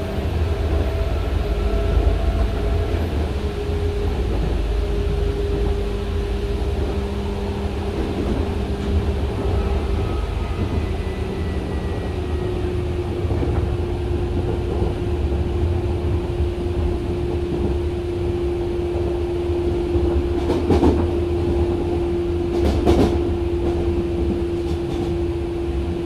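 Hanshin 5001-series resistor-controlled commuter car running, heard from inside the car: a steady low rumble of wheels on rail under a steady whining tone. Near the end come two sharp clacks a couple of seconds apart.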